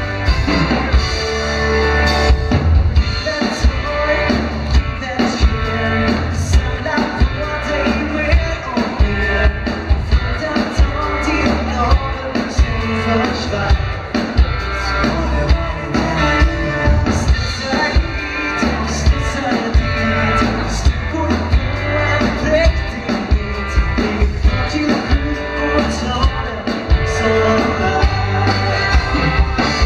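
A live dansband playing with a steady beat: drum kit, electric guitar, bass and keyboards, with a singing voice over the top.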